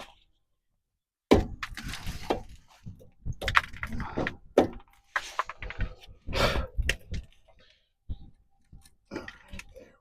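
Irregular clanks, knocks and scrapes of hand tools against metal parts, starting with the loudest strike about a second in, dense for several seconds, then a short pause and a few sparser hits near the end.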